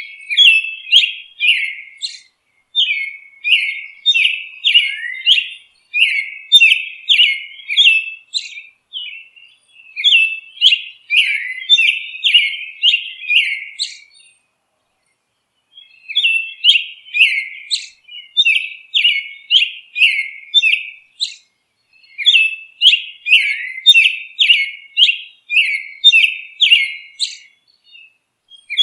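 Songbird chirping: rapid runs of short, high, downward-sliding chirps, several a second, in bursts of a few seconds, with a break of about two seconds around the middle.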